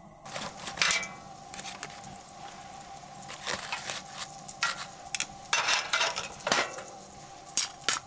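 Irregular sharp clicks, clinks and crackles at a wood-burning stove with foil-wrapped sweet potatoes roasting on the embers, about eight distinct hits with the loudest cluster in the second half.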